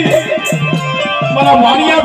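Live dakla folk devotional music: a drum beating quickly, its pitch swooping up and down over a steady low drone.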